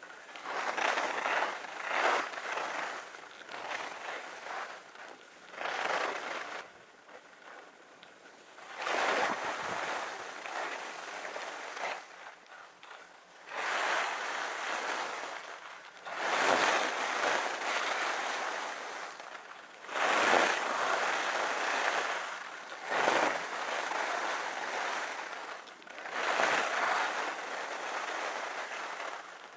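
Skis hissing and scraping over packed groomed snow, swelling in a surge with each turn every few seconds.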